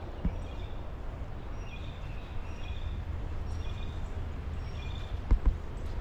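Birds chirping, short high notes repeating about once a second, over a steady low rumble. Two thumps a little before the end are the loudest sounds.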